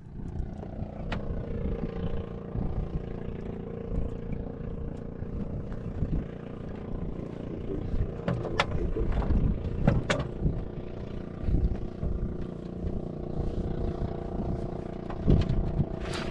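An engine running steadily, with a few sharp clicks and knocks over it.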